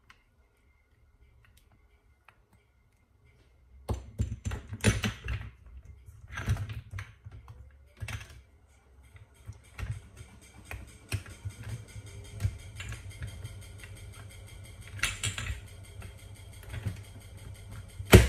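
Small plastic spice jars clicking and rattling against each other and their lids as they are picked from a basket and shaken over a bowl, in irregular taps, with one sharp click near the end. The first few seconds are nearly silent.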